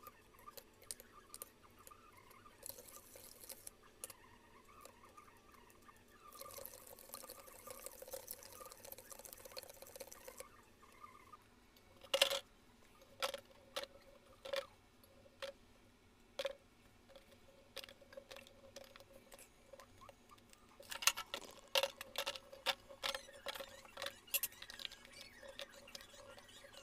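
Small green lemons dropped into a clear plastic jar: a run of sharp knocks and clatters in two clusters, with an earlier stretch of rustling hiss.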